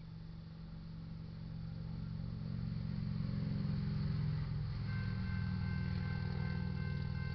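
Diesel locomotives of an approaching BNSF freight train, led by a GE ES44C4 with an EMD SD60M trailing, drone low and grow steadily louder. About five seconds in, the railroad crossing's warning bell starts ringing.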